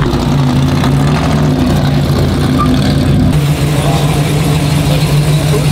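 Dodge Charger Hellcat's supercharged V8 running at low revs with a steady, even rumble as the car pulls away. After a cut about three seconds in, a classic muscle car's engine idles on.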